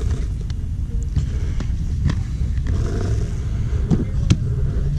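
Steady low rumble of a car driving, with a few sharp knocks and rattles.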